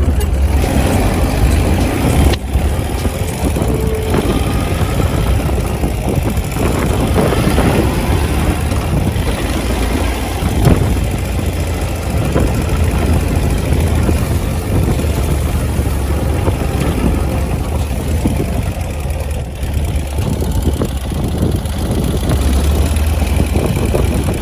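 Ural Gear-Up sidecar motorcycle's air-cooled flat-twin engine running steadily on the move, with a heavy low rumble of wind on the microphone.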